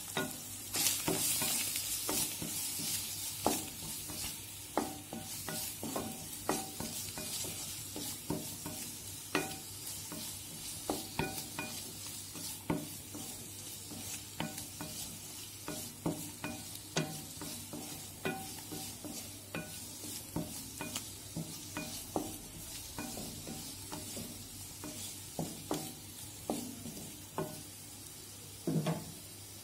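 Paneer cubes sizzling in oil and ghee in a nonstick frying pan while they are stirred and turned, with frequent light knocks and scrapes against the pan. The sizzle is loudest in the first few seconds.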